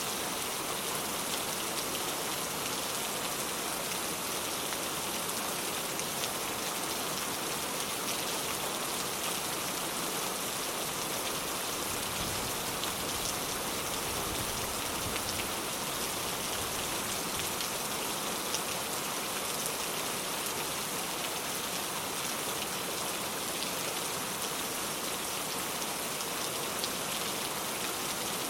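Steady rainfall, with scattered individual drops ticking on surfaces.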